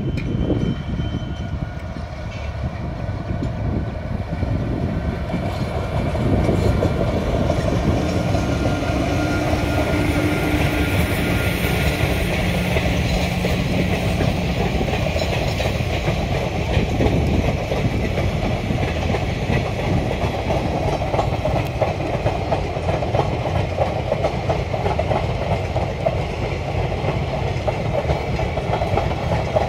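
Passenger train passing at speed: the electric locomotive goes by, then a long rake of coaches rolls past with a steady clickety-clack of wheels over the rails. The sound gets louder about six seconds in and stays loud.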